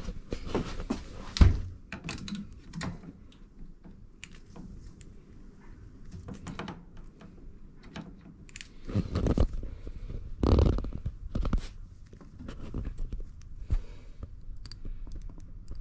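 Hand snips working at a bicycle cable: irregular clicks, crunches and knocks as the blunt blades chew at it rather than cutting cleanly, with a sharp knock about one and a half seconds in and a louder run of crunching around ten seconds in.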